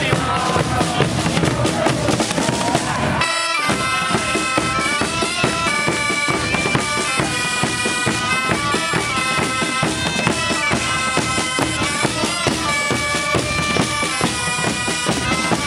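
Drums beating for about three seconds, then, after a sudden break, Mallorcan bagpipes (xeremies) with other pipes playing a melody in held notes over steady drumming.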